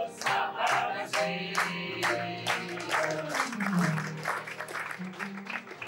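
A song sung to piano accompaniment, with the audience clapping along in steady time.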